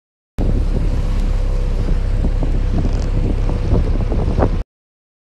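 Wind buffeting the microphone aboard a moving open motorboat, with the steady hum of its 60 hp outboard engine underneath. The sound starts and cuts off abruptly.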